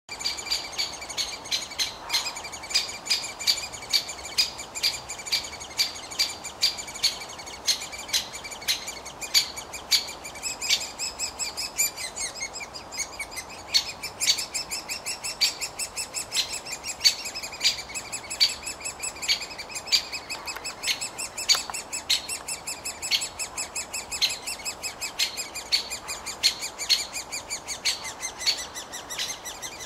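Great spotted woodpecker nestlings begging from inside the nest hole: short, high chirping calls repeated several times a second without a break.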